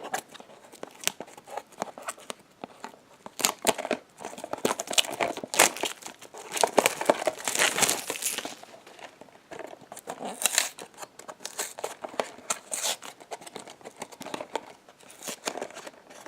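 Toy blind-box packaging being handled and opened: cardboard and plastic wrapping crinkling and tearing in irregular bursts, busiest around the middle.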